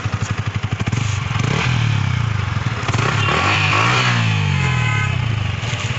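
Yamaha MT-15's 155 cc single-cylinder engine through its stock exhaust, idling with a steady pulse. About a second and a half in it is revved up, peaks around the middle and falls back to idle near the end.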